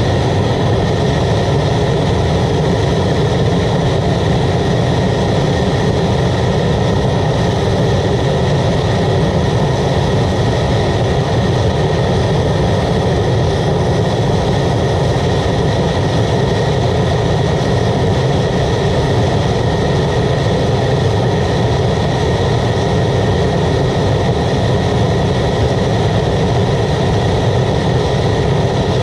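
Waste oil burner running at full fire: its blower fan and forced-air flame make a loud, steady rushing noise with a faint steady whine.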